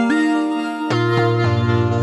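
Modular synthesizer music from the Make Noise New Universal Synthesizer System: pitched notes with sharp attacks, one sliding slightly upward in pitch at the start, and a low bass note coming in about a second in.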